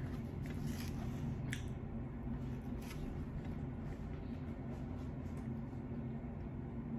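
Drinking from a plastic sparkling-water bottle: faint sips, swallows and bottle handling with a few light clicks, over a steady low room hum.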